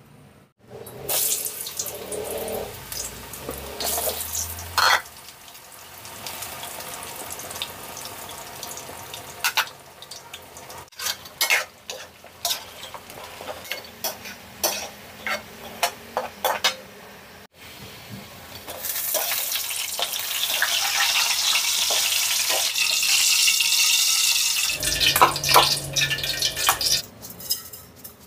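Sweet potato slices frying in hot oil in a metal wok: a sizzling hiss that is loudest in the second half, with scattered knocks and clinks of utensils against the pan.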